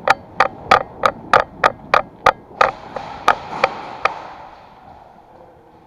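About a dozen sharp, echoing cracks in a quick, slightly uneven run of roughly three a second, stopping about four seconds in.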